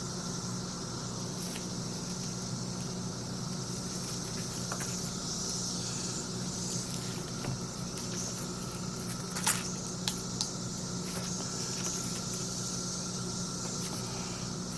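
Steady background hum with a high hiss, and a few faint clicks around the middle.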